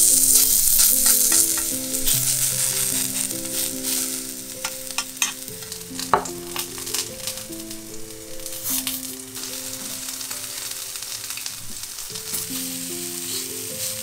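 Chicken tsukune patties sizzling in oil in a frying pan, loudest at the start and easing off, with a spoon clicking against the pan a few times about five to six seconds in. Light background music with a simple melody plays over it.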